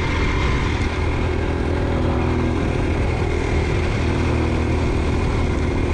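Motorcycle engine running steadily as the bike rides along a dirt track, with a steady rushing noise of wind and tyres over it.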